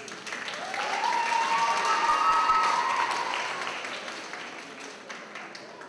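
Theatre audience applauding, swelling to a peak about halfway through and then dying away, with a long cheer carried over the clapping in the middle.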